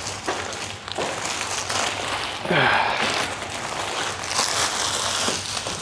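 Clear plastic packaging crinkling and rustling as it is handled, loudest in a burst about two and a half seconds in.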